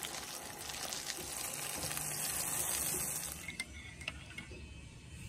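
Water running and splashing, louder for a second or two in the middle, then quieter, with a few light clicks near the end.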